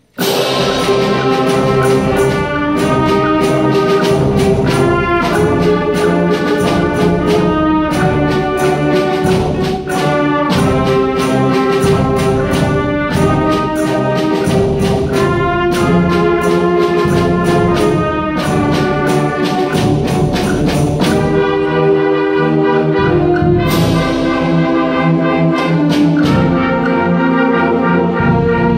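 School concert band playing a fast piece with woodwinds, brass and percussion, coming in together on a sudden loud opening attack, with regular sharp percussion hits under the sustained chords.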